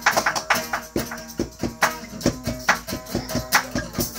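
Instrumental intro of a pop song: a steady, quick beat of sharp percussion strokes over held tones, before the vocals come in.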